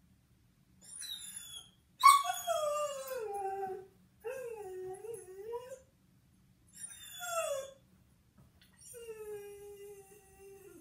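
A borzoi howling in five separate calls. The loudest starts high about two seconds in and slides down. Shorter, wavering cries follow, and a long, level howl runs near the end.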